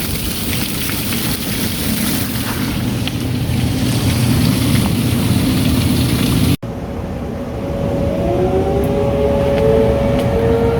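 Storm wind and rain buffeting the microphone with a heavy rumble. After a sudden cut, outdoor tornado warning sirens start up: a steady tone, joined about a second later by wails that rise in pitch.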